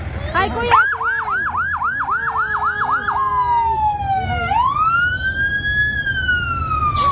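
Fire truck siren sounding as the truck passes: it starts with a quick rise into a fast up-and-down yelp, about four cycles a second, then switches to one slower rise and a long, falling wail. The truck's engine rumbles low underneath.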